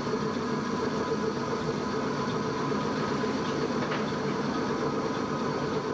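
Vintage automatic washing machine running, a steady motor hum with several fixed tones.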